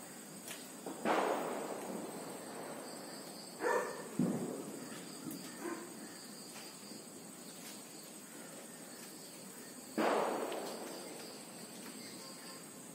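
Two sharp bangs about nine seconds apart, each dying away over a second or two, over a steady high insect drone.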